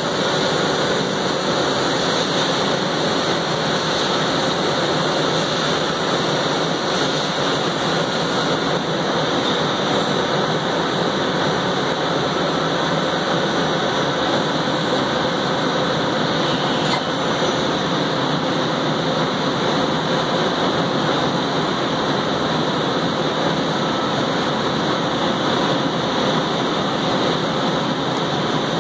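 Miyano LM-21 four-spindle CNC turning center running with its 8-inch chucks spinning: a steady, unchanging machine noise.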